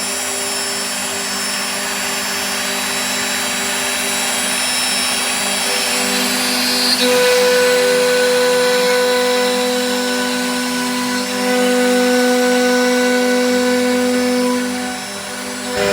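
CNC router spindle running and cutting wood: a steady whine over a high noisy hiss, its pitch and level shifting about seven seconds in as the load changes, with a brief dip near eleven seconds and a drop near the end.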